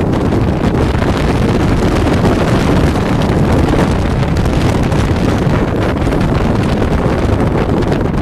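Steady, loud wind buffeting on the microphone of a camera carried on a moving motorcycle at road speed, with the motorcycles' engine and road noise mixed in underneath.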